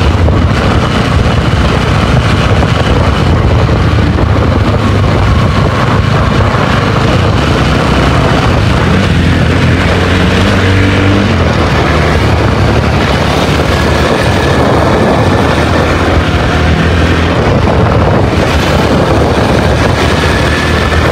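Single-cylinder sport motorcycle engine running under way, loud, with heavy wind rush on the microphone; the engine note shifts around the middle.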